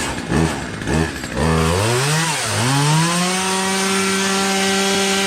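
A small high-revving engine blipped several times, then revved up, dipped and climbed to a steady high-speed whine.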